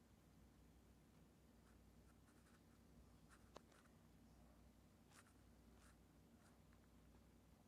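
Near silence: faint room tone with a few soft clicks and scratches, one sharper click about midway.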